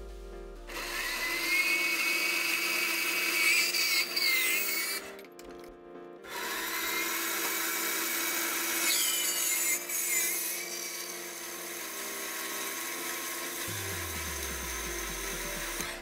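Metal-cutting band saw blade cutting through a steel profile tube: a steady rasp with a high whine that wavers in pitch, in two stretches broken by a short gap about five seconds in.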